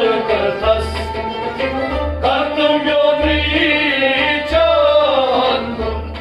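Kashmiri folk song: men's voices singing over a harmonium and a bowed sarangi.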